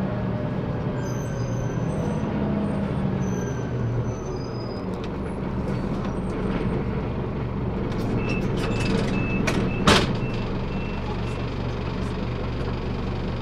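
Scania CN270UB city bus heard from inside, its Scania DC9 five-cylinder diesel running steadily under way, with the engine note easing off about four seconds in. About ten seconds in comes a short, sharp air-brake hiss, with a run of short high beeps around it.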